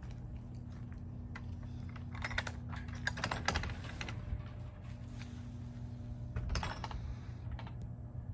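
Footsteps of a person walking, with a few crackly clusters of steps, over a steady low hum.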